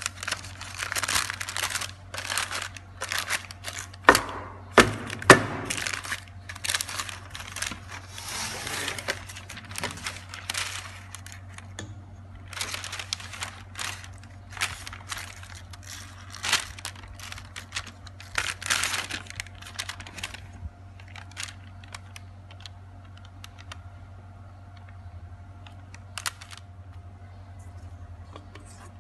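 Baking paper rustling and crinkling as it is handled and pressed into a cake pan, in irregular bursts that die down after about twenty seconds, with a few sharp knocks around four to five seconds in. A low steady hum runs underneath.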